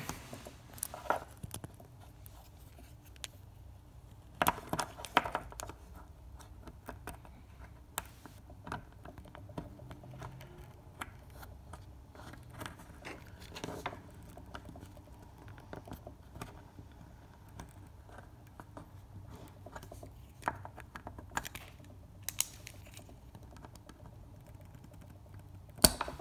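Small metal clicks and scrapes of a wire retaining ring being worked into a transmission cooler line quick-connect fitting by hand. They come scattered and irregular, with a cluster of louder clicks about five seconds in and another about twenty-one seconds in, over a faint low hum.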